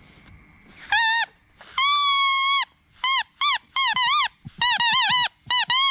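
Acacia seed-pod whistle blown between the lips: a reedy, squeaky note. First a short toot, then one long held note, then a run of short toots that waver in pitch.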